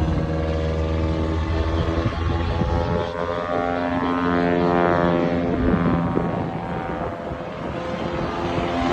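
Propeller-driven aerobatic plane's engine droning, its pitch sliding up and down as the plane loops through a smoke-trailing manoeuvre.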